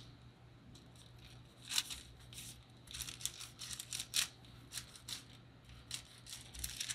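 Faint crinkling and rustling of a thin clear plastic sheet under hands rolling a log of foam clay, in short irregular scratchy bursts starting about two seconds in.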